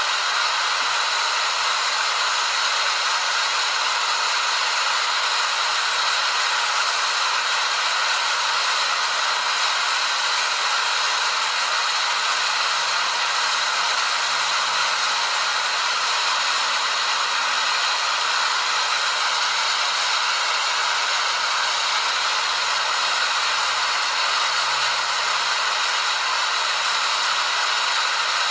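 Waterfall: a steady rush of falling water that stays even throughout.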